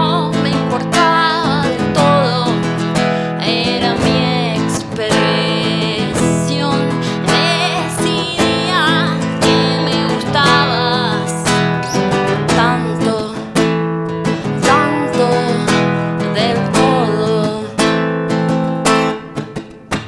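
Acoustic guitar strummed in a steady rhythm, with a woman singing a melody over it.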